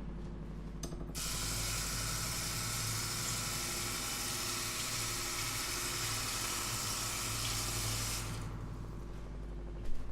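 Kitchen tap running into the sink: a steady rush of water that starts about a second in and stops a couple of seconds before the end, over a low steady hum.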